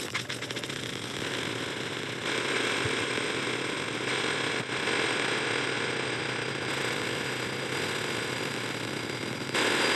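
Harsh, dense wall of distorted noise with a rattling, grinding texture, from many overlapped copies of a heavily re-exported soundtrack. It gets louder in steps a few times.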